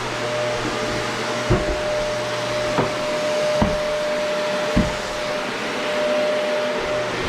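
Household vacuum cleaner running steadily with a constant whine, with a few separate knocks about a second apart as it bumps along.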